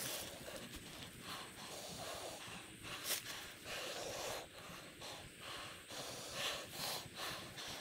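Faint, hard breathing: a string of short puffs of breath, roughly one every half second to a second.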